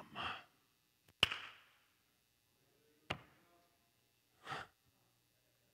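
A sharp tap about a second in and another about two seconds later, with a man's breath near the end.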